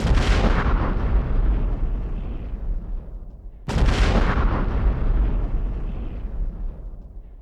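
Two loud booms about three and a half seconds apart, each starting suddenly and dying away in a long rumbling tail.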